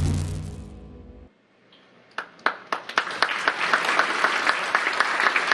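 Show music with a deep low drone fades out over the first second, then a brief hush. About two seconds in an audience starts clapping, a few scattered claps at first, then filling into steady applause.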